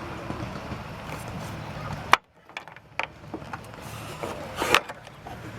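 Sharp plastic clicks and knocks as a turn-signal bulb socket is twisted counterclockwise and worked loose from a car's headlight housing, over a steady low hum. The loudest click comes about two seconds in, and the sound briefly cuts out just after it.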